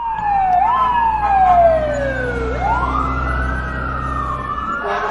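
Two fire truck sirens wailing at the same time, their pitches overlapping. The louder one slides down slowly, then sweeps back up about two and a half seconds in, over a low engine rumble.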